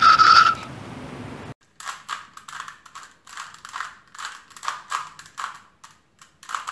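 A 3x3 Rubik's cube being turned quickly by hand, its plastic layers clicking and clacking in irregular bursts a few times a second. It opens with a brief loud sound over steady outdoor noise, which cuts off about a second and a half in.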